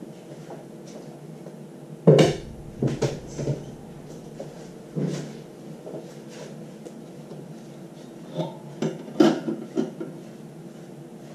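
Knocks and clatter of plastic and rubber filter parts handled against the stainless steel plate of a filter housing: a loud clank about two seconds in, a few lighter knocks over the next three seconds, and a quick cluster near the end, over a steady low hum.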